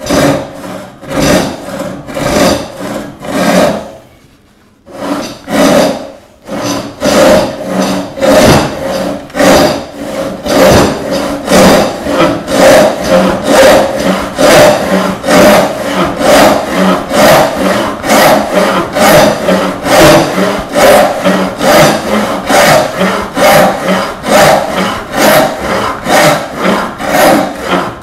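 Roubo-style frame saw resawing a small block of walnut by hand. A few light, uneven strokes start the cut, there is a short pause about four seconds in, then a steady rhythm of saw strokes runs at about two a second.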